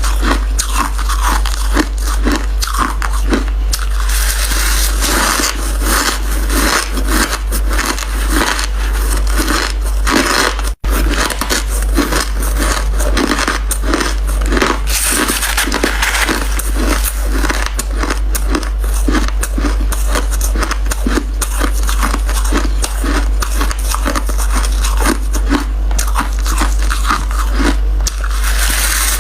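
Close-miked biting and chewing of crunchy white crushed ice: a continuous run of loud, crisp crunches and crackles in a steady chewing rhythm. The sound cuts out for an instant about eleven seconds in.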